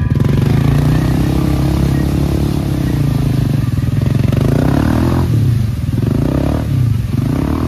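ATV engine revving hard with its mud tires spinning in deep mud while the machine is bogged down. About five seconds in, the revs start rising and falling repeatedly.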